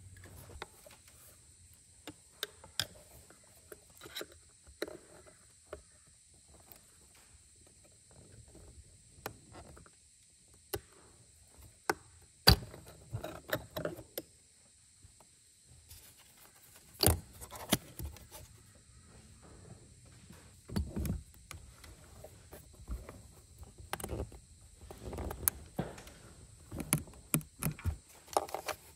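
Scattered clicks, taps and small rattles of hands working plastic electrical connectors and wiring in an engine bay, unplugging the manifold pressure sensor's connector. Two louder knocks come near the middle.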